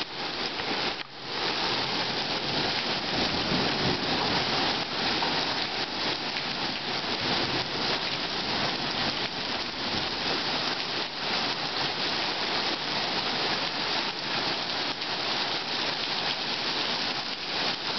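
Heavy rain falling steadily on pavement, a dense, even patter as a hailstorm ends in plain rain.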